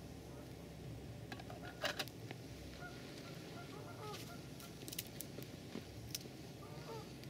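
Faint honking calls from geese or other waterfowl, a few short calls about three seconds in and again near the end, over a low steady outdoor rumble. A couple of sharp clicks about two seconds in are the loudest sound.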